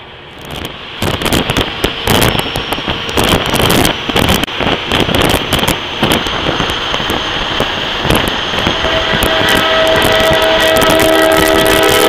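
Heavy wind buffeting on the microphone through an open semi-truck cab window as the rig gets up to speed. Near the end, an air-powered train horn mounted on a truck starts blowing a steady chord of several notes that keeps getting louder.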